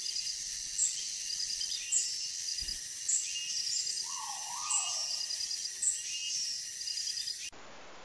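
Forest insect chorus, high and shrill, with a bright chirp and short trains of rapid notes repeating about once a second. A short bird call that falls and rises comes about four seconds in. The sound cuts off suddenly near the end, leaving only hiss.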